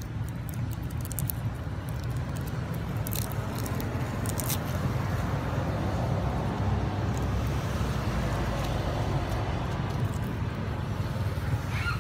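Steady low outdoor rumble, with a few faint crackles and a short high squeak near the end.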